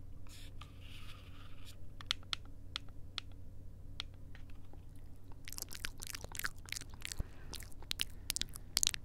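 Close-miked ASMR kisses and lip smacks into the microphones of a handheld Tascam recorder: a breath near the start, then a string of short, sharp wet clicks, coming more often in the second half.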